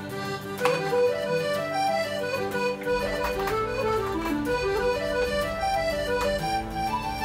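Background music: a solo accordion playing a light, stepping melody over sustained chords.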